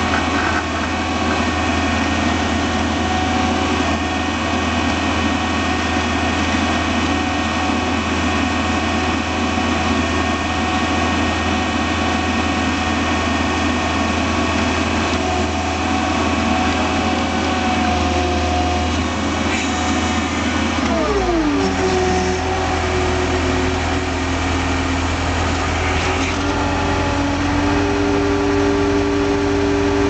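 John Deere 320 skid steer loader's diesel engine running steadily under load while the plow blade pushes snow. About two-thirds of the way through, its pitch slides down and settles at a lower, steady note.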